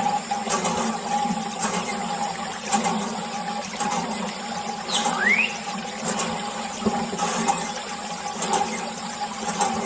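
Water running and splashing from a mini water pump, with a steady hum underneath and a short rising squeak about halfway through.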